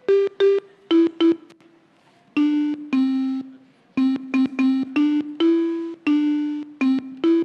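Ototo DIY synthesizer board playing electronic notes as the fruit wired to its keys is touched. It makes a tune of single synth tones at a few pitches, short taps at first, then a pause about two seconds in, then longer, lower notes.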